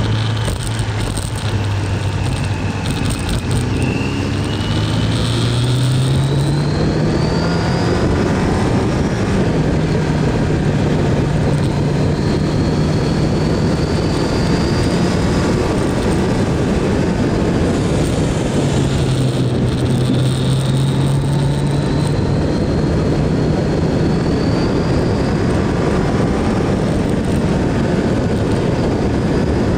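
Kawasaki GPZ900R inline-four motorcycle engine under way at road speed, under heavy wind rush on the microphone. The engine note climbs in the first several seconds, holds steady, and drops lower for a few seconds past the middle.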